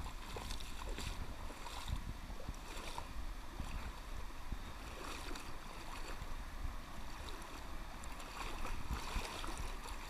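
River water flowing and lapping close by, with scattered small splashes over a steady low rumble.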